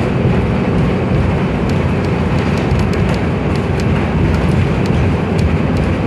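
Transit bus driving along, heard from inside the cabin: a steady engine and road rumble with scattered light clicks.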